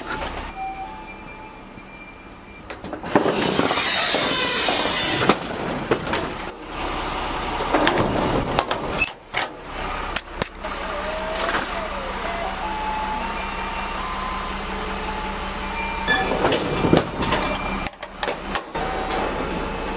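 Heavy vehicle running steadily, with repeated knocks and clatter, louder about three to five seconds in, and a falling whine a little past halfway.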